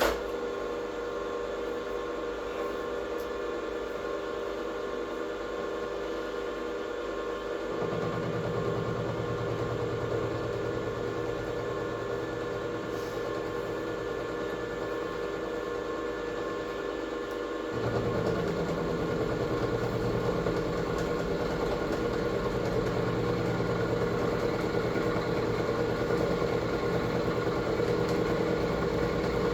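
An electric workshop machine switches on and runs steadily with a whine of several fixed tones. A lower hum joins about eight seconds in, and about ten seconds later the running gets louder and stays so.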